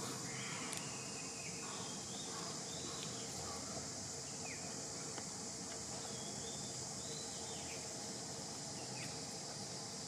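Steady high-pitched hiss of an insect chorus, with faint short chirps that drop in pitch, scattered a few times through it.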